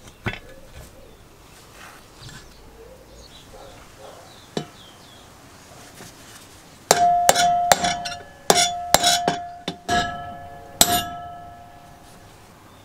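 A metal tool striking the compressor's metal housing, a dozen or so sharp, uneven metallic taps about seven seconds in, each leaving a ringing tone. Before them, quiet handling clicks.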